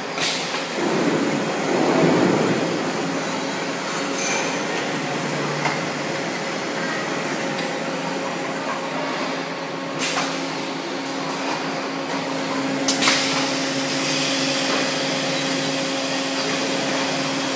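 Concrete block clamp cuber running: a steady machine hum with sharp clanks at the start, about ten seconds in and near thirteen seconds, the last followed by a hiss.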